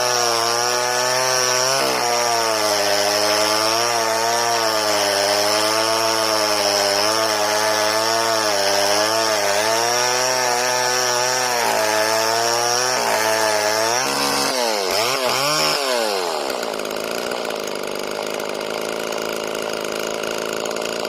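Homelite Super 2 two-stroke chainsaw running at high revs and cutting wood, its pitch wavering under load. About fourteen and a half seconds in, the throttle is released and the engine drops to a steady idle.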